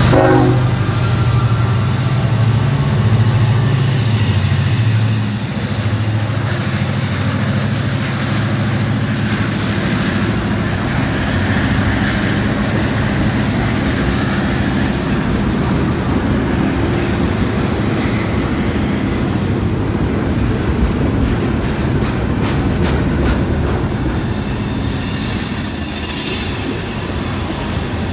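CSX freight train passing close by. The diesel locomotives' engines drone for the first five seconds or so, then the freight cars roll past with a steady rumble of wheels on rail and quick clicking over the joints. A high-pitched wheel squeal rings for a few seconds near the end.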